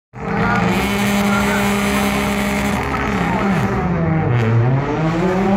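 Rally car engine at high revs, holding a steady pitch for about three seconds. It then falls and climbs again as the driver lifts off and shifts through the course.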